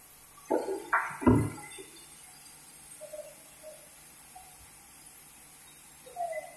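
Sawn teak timber knocking heavily against the band sawmill's carriage as it is handled, three hard knocks in the first second and a half, then a few lighter knocks, over a faint steady hum; the saw is not cutting.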